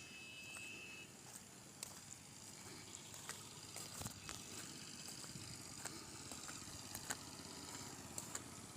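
Faint outdoor ambience on a farm, with scattered light clicks and knocks throughout and a brief high chirp in the first second.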